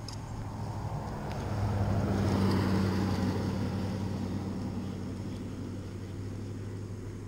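A motor vehicle passing by: a steady engine hum that swells to its loudest about two and a half seconds in, then slowly fades.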